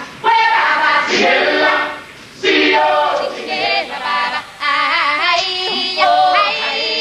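An ensemble of voices singing a musical-theatre number in held phrases with vibrato, breaking off briefly a couple of times.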